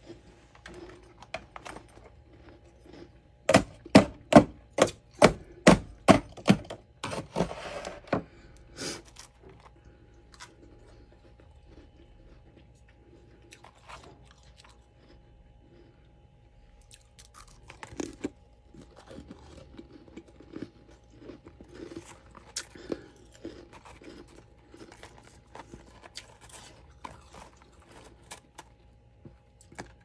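Close-miked crunching and chewing of powdery freezer frost. A run of about ten loud, evenly spaced crunches comes a few seconds in, two or three a second, then softer, scattered chewing crunches.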